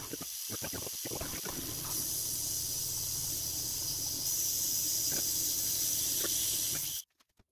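Metal lathe drilling the end of a steel shaft with a twist drill held in the tailstock chuck: a steady hiss over the low hum of the machine. The hiss grows louder about two seconds in, and the sound cuts off abruptly near the end.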